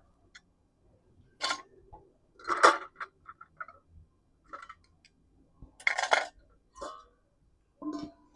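Several short, separate clinks and knocks of cookware and utensils being handled, about six in all with quiet gaps between.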